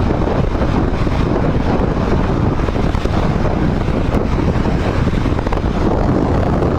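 Steady wind rushing over the microphone of a motorcycle cruising at highway speed, with the riding noise of the Royal Enfield Himalayan 411 underneath.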